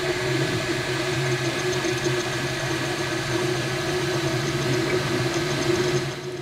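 MakerBot Replicator 2 3D printer printing a plastic bracelet: its print head buzzing steadily as it moves, with a low motor hum. The sound drops in level near the end.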